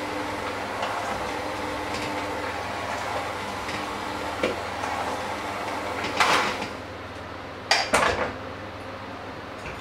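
Electric hand mixer running, its beaters churning a mixture in a stainless steel bowl and scraping against the metal. Two louder clatters of the beaters against the bowl come about six and eight seconds in, after which the sound is quieter.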